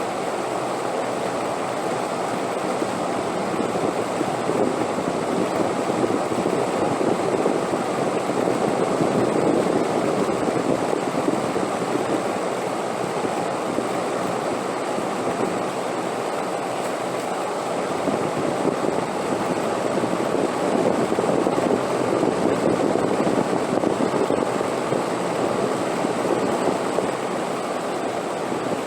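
Continuous wind, a steady rushing that swells and eases slowly twice.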